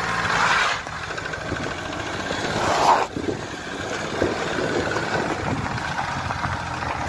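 Off-road vehicle engine running steadily, with two loud rushing surges: one about half a second in, and one building to about three seconds in that cuts off sharply.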